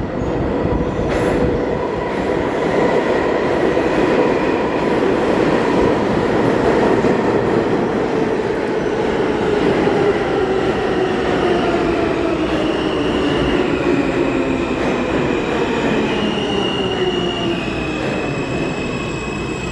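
R160A subway train pulling into a station: a steady loud rumble of wheels on rail, with the motors' whine falling in pitch as the train slows, and higher stepped tones in the later part as it brakes.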